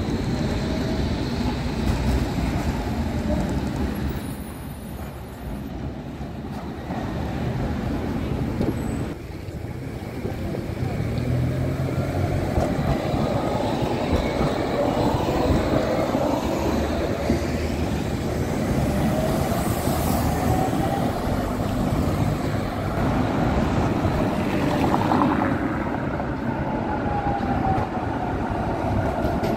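Electric trams running along street track: steel wheels rumbling on the rails and the traction motors whining, their pitch gliding up and down as the trams speed up and slow down. Both a modern low-floor articulated tram and an older Tatra KT4 tram are passing.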